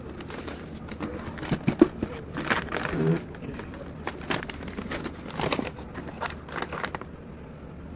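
Paper mailer packaging and a cardboard shoebox rustling, scraping and knocking as they are handled and opened by hand, in irregular bouts with a few sharper crackles.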